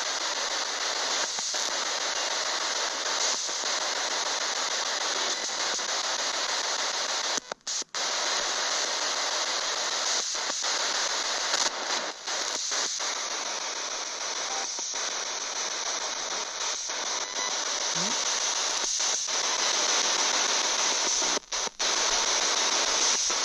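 Spirit box sweeping FM radio stations: a steady loud hiss of radio static, cut by brief silences as it jumps between channels.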